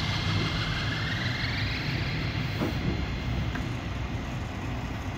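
Semi-truck diesel engine running at low revs while backing a trailer, with a thin whine rising in pitch over the first two seconds.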